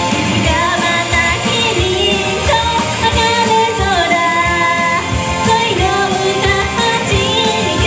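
A young woman singing a Japanese pop song live into a handheld microphone, over a loud pop backing track with a steady drum beat.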